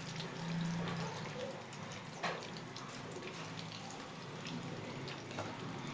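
Hot cooking oil sizzling and crackling in a frying pan, with many small pops and one sharper pop about two seconds in. A low steady hum runs underneath.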